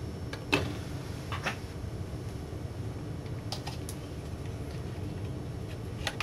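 A few sharp clicks and light knocks of a circuit board and its wires being handled and set down in an LCD monitor's metal chassis, the loudest about half a second in, over a steady low hum.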